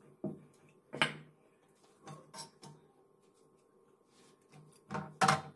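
Kitchen clatter while cooking rotis: a few short knocks and clicks of metal tongs and utensils against an iron tawa on a gas stove. The loudest knock comes about a second in, and another near the end.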